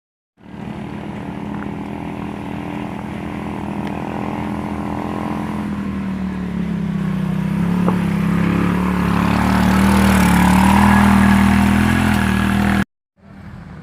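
An engine running steadily and getting gradually louder, its pitch sagging and wavering about halfway through, then cutting off suddenly near the end.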